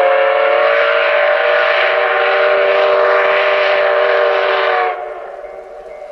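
Steam whistle of the C56 160 steam locomotive blowing one long blast. Its pitch rises slightly as it opens, and it stops about five seconds in.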